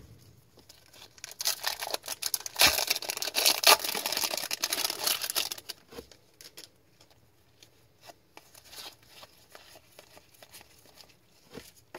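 The foil wrapper of a 2023-24 Upper Deck MVP hockey card pack being torn open and crinkled for about four seconds, starting about a second in. Scattered soft clicks of the cards being handled follow.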